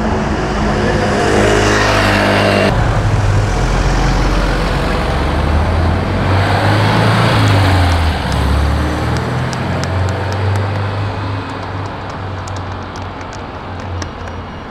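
Road traffic: car engines running and passing by, with a strong low engine tone. The sound changes abruptly about three seconds in, and there are faint sharp clicks near the end.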